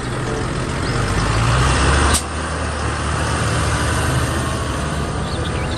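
Large farm tractor's diesel engine running as the tractor drives on asphalt, its note building over the first two seconds before an abrupt change, then running steadily.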